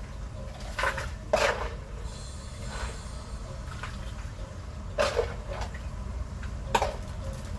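A few short knocks and clatters, about four in all, over a steady low rumble.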